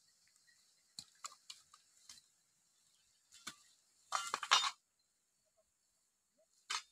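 Scattered rustles and scuffs in dry grass and undergrowth, with the loudest, a short flurry of rustling, a little after four seconds in and another brief rustle near the end.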